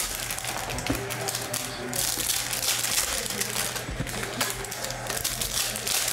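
Shiny trading-card pack wrappers crinkling as they are torn open by hand, with cards handled and shuffled: a dense run of crackling, ticking rustles. Music plays underneath.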